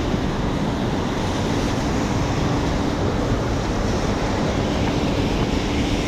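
Steady wash of heavy rain mixed with city street traffic, with a faint low hum drifting in and out.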